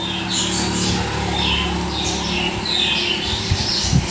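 Small birds chirping repeatedly, with the low rush of water poured from a bottle into a steel bowl of chicken, onion and flour, which stops about three seconds in, as hands squeeze it into bonda batter.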